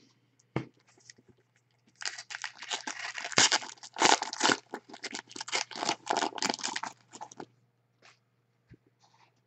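Foil wrapper of a soccer trading card pack being torn open and crumpled: a dense run of crinkling and crackling from about two seconds in until about seven and a half seconds, with a few faint card clicks around it.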